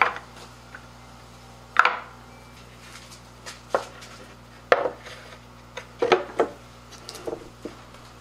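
Hardwood marimba keys clacking as they are laid into a wooden case, then the case's wooden lid knocking as it is fitted on. Seven or so sharp wooden knocks come at irregular intervals, several with a brief ring.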